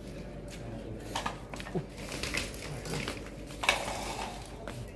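Scattered clicks and rustling from tools and wiring being handled, with one sharper click about three and a half seconds in.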